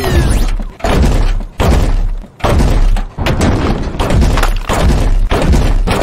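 Designed sci-fi robot sound effect: a run of heavy mechanical impacts with deep bass, a little more than one a second.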